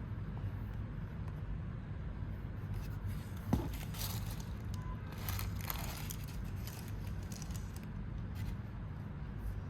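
Shoes and their packaging being handled: soft scrapes and rustles with one sharp knock about three and a half seconds in, over a steady low hum.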